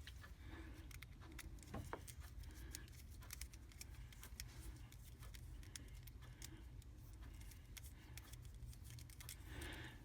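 Faint, scattered small clicks and light rattling of small parts being handled, over a steady low hum.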